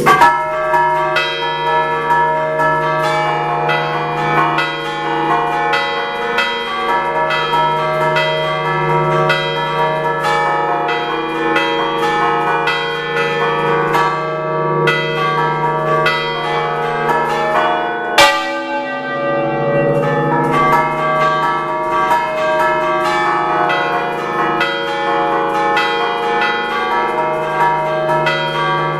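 A six-bell concerto in D, five bells cast by Picasso of Recco in 1905 and one by Enrico Picasso in 1977, rung by hand 'a ducale' in the traditional Ligurian style. Strikes follow one another quickly in a rhythmic pattern, each note ringing on under the next, heard loud and close from inside the belfry. One strike about 18 s in is sharper and louder than the rest.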